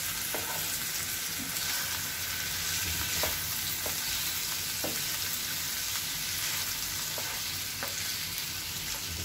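Raw chicken pieces with spices and ginger-garlic paste sizzling in hot oil in a nonstick frying pan, stirred with a spatula that scrapes and taps against the pan several times.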